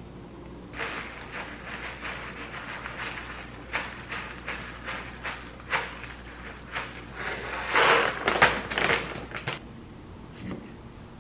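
Food-prep handling sounds: small irregular taps and clicks against a ceramic bowl, then a plastic zip bag rustling as granola is poured in. The bag and granola are loudest about eight seconds in.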